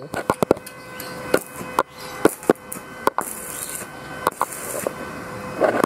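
Stick (arc) welding with a repaired Rhino 450-watt inverter welder: the electrode is scratched and tapped on the steel plate to strike the arc, giving irregular sharp cracks and pops. About three seconds in, the arc holds and burns with a steady high hiss for about two seconds, then sputters again.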